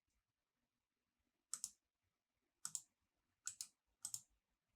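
Faint computer mouse clicking: four quick pairs of clicks, spread out over near silence.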